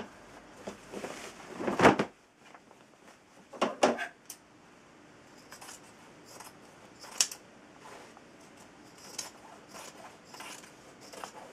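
Sewing scissors cutting a cotton pillowcase apart along its seam in a string of short, irregular snips. Before the snipping starts there are a few louder rustles of the fabric being handled, the loudest about two seconds in.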